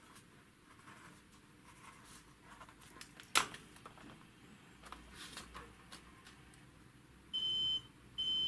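Multimeter continuity beeper sounding twice near the end, a steady high beep each time the test probe touches a connector pin that connects to the one under test, marking continuity with the coils' common point. Before that, light handling clicks and one sharper tap about three and a half seconds in.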